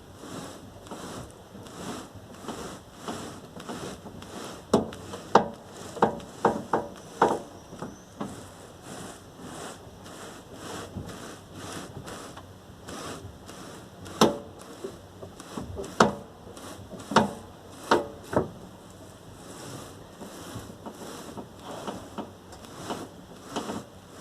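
Sharp knocks under the hood of a VAZ 21099 as the steering is turned: a quick cluster of about six knocks near a quarter of the way in, then four more spaced a second or two apart past the middle. The owner asks whether this knock means the steering rack is worn out.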